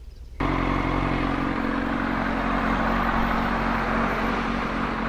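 Motorcycle engine running at a steady speed amid traffic noise. It starts abruptly about half a second in.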